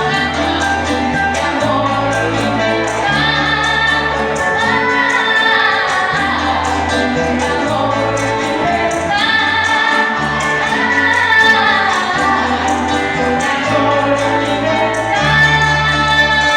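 Music: a woman singing over an instrumental backing with a steady bass line, sustained, gliding notes in the melody.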